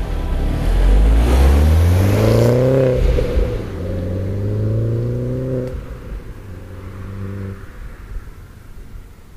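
Mini Cooper S R56's turbocharged 1.6-litre four-cylinder on its stock exhaust, accelerating hard: the pitch rises, breaks at a gear change about three seconds in, and rises again. Near the middle it drops to a lower, steady note, then fades away.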